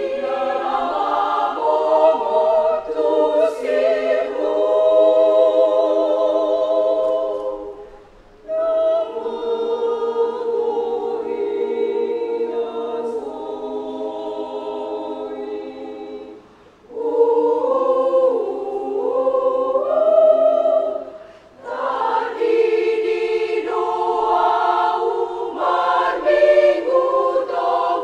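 Women's choir singing a cappella in several-part harmony: held chords, some with vibrato, broken by three short pauses between phrases.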